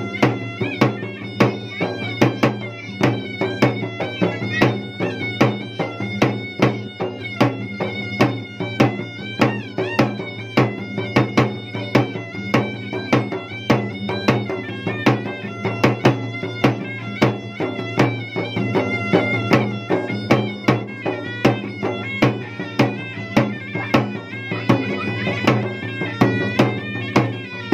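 Traditional Makassarese gendang ensemble: drums beaten in quick, repeated strokes under a continuous, nasal reed-pipe melody (a pui-pui-style shawm) over a steady drone. The music stops at the very end.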